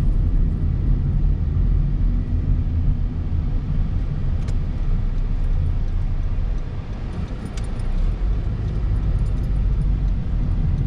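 Steady low engine and road rumble heard from inside a moving car's cabin, dipping a little about two-thirds of the way through, with a couple of faint ticks.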